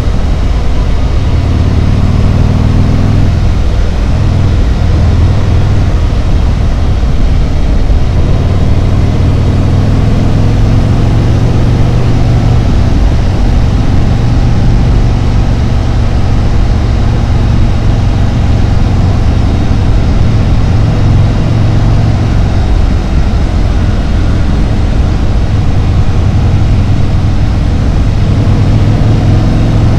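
Harley-Davidson Road Glide's V-twin engine and exhaust running steadily at road speed. The engine note wavers over the first several seconds, then holds even.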